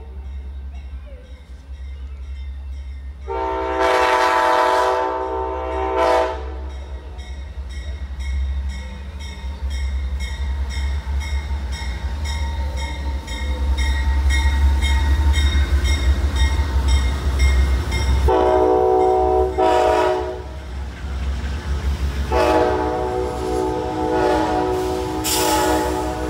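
An Amtrak GE Genesis diesel locomotive sounds its multi-note horn as the passenger train passes close by, with a steady heavy rumble from the train. There is a long blast a few seconds in, a broken pair of blasts about two-thirds through, and another long blast near the end.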